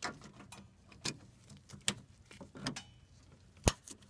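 Pliers working the clamp off an upper radiator hose: scattered clicks and taps, with one sharp click near the end.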